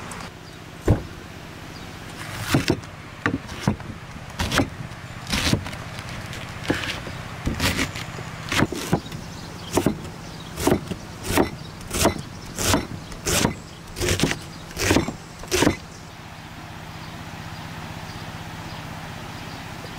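Large kitchen knife chopping a red cabbage on a wooden cutting board: about twenty sharp chops of the blade striking the board, uneven at first, then a steady rhythm of about one and a half chops a second, stopping a few seconds before the end.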